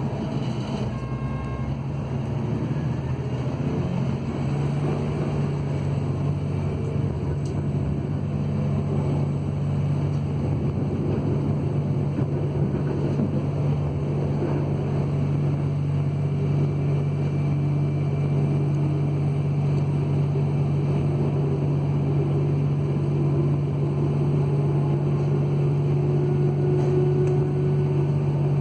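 DB Class 644 Talent diesel-electric railcar pulling out of a station, heard from inside the train: a steady low diesel drone that strengthens about four seconds in and grows slowly louder as the train gathers speed, with a faint tone rising near the end.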